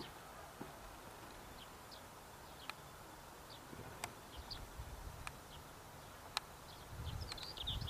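Quiet outdoor ambience with scattered short, high bird chirps and a few sharp ticks. A low rumble builds near the end.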